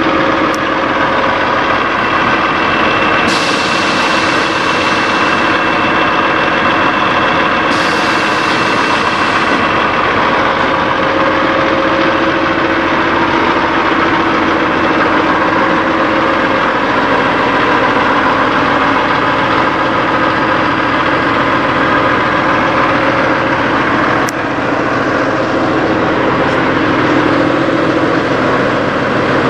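Peterbilt semi truck's diesel engine idling steadily. Two bursts of hissing come about three and eight seconds in, and there is a sharp click near the end.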